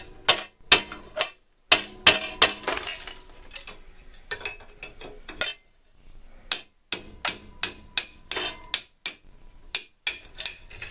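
Repeated sharp hammer blows on a draw knife's stuck wooden handle, knocking and breaking the wood off the metal tang. The blows come roughly one to two a second, with a short pause a little past the middle, and some of them leave a faint metallic ring.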